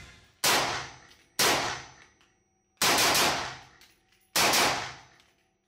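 LWRCI SIX8 Razorback 6.8 SPC rifle firing: four sharp reports at uneven gaps of about one to one and a half seconds. Each report dies away over about half a second.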